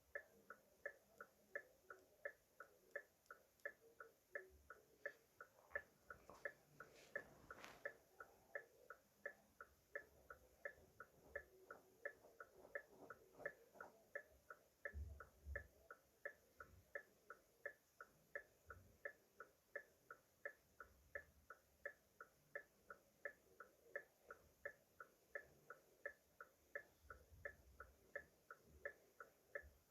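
Car hazard-light flasher ticking faintly and evenly, about two clicks a second.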